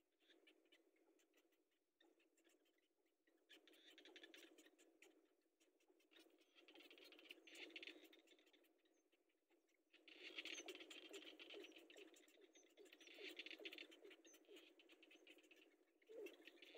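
Cinnamon bittern chicks giving faint bursts of rapid, ticking chatter from the nest. There are several bursts a second or two long, louder in the second half, over a soft rustle of the chicks shifting in the nest.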